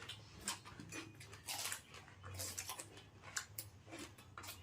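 Someone eating fruit: irregular soft crunches, smacks and mouth clicks of chewing, with a couple of louder crunchy bursts.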